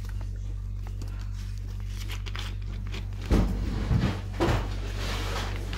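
A pen scratching on a sheet of paper that rests on a fabric sofa, over a steady low hum. A few louder bumps and rustles of hand and paper come a little past halfway.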